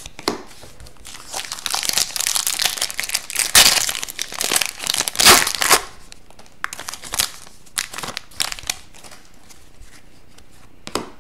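A foil hockey-card pack wrapper being torn open and crinkled, loudest over the first half. After that come scattered light snaps and clicks as the stack of cards is handled.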